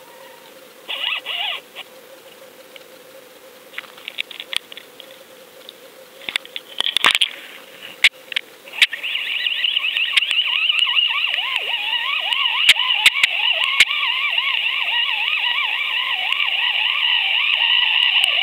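Underwater audio from a fishing-line camera. A faint steady hum and scattered sharp clicks give way, about nine seconds in, to a loud, steady, high warbling whine as the camera is hauled up through the water.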